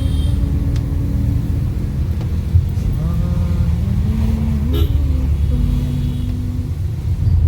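Steady low rumble of a Fiat Linea's engine and tyres heard inside the moving car's cabin. A man hums a tune over it in several long held notes.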